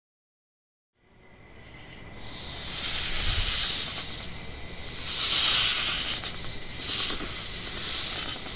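Night-time insect chorus, crickets trilling steadily and high-pitched, over a hissing noise that swells and eases a few times. It starts after about a second of silence.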